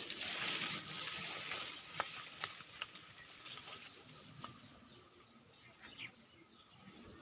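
Rural outdoor ambience: a rushing hiss for the first second or so, then a few scattered short chirps and clicks.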